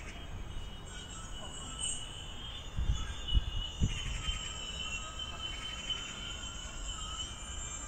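Outdoor ambience during snowfall: a few faint, steady high-pitched tones over a low background hum, with a few low thumps a little after three seconds in.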